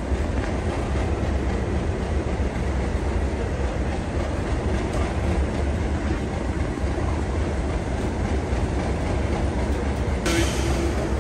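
A pair of Class 37 diesel locomotives approaching slowly, their English Electric V12 engines giving a steady low rumble. About ten seconds in, the sound abruptly turns brighter, with a steady tone over the rumble as the locos draw close.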